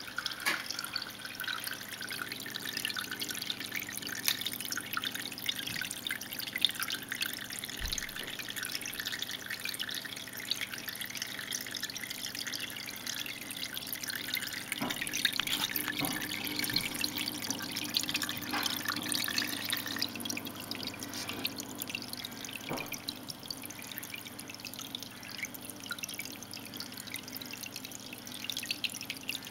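Water trickling from a brass tube fitting down a vivarium's rock background, with a steady patter of small drips and splashes.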